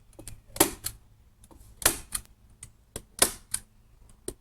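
A series of sharp, hard clicks or snaps, mostly in pairs a moment apart, repeating about every second and a half.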